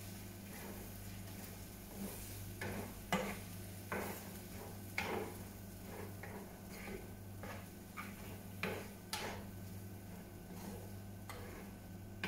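Wooden spatula stirring and scraping vegetables in a nonstick frying pan: a run of irregular scrapes and light knocks, the sharpest about 3, 5 and 9 seconds in. Light sizzling and a steady low hum run underneath.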